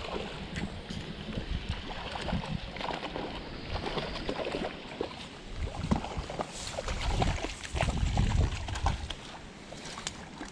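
Irregular rustling and small knocks from handling gear and moving through dry leaves on a streambank, over a low rumble of wind on the microphone.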